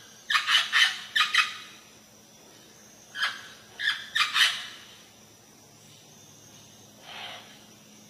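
Amazon parrot calling in harsh squawks: a quick run of about four near the start, three or four more a few seconds later, and one fainter call near the end.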